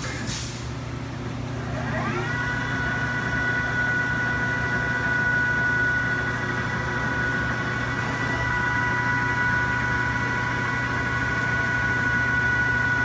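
Chevalier FCL-1840 CNC lathe running a program. Over a steady machine hum, the spindle drive's whine rises as the chuck spins up about two seconds in, then holds at a steady pitch. A brief hiss near the start.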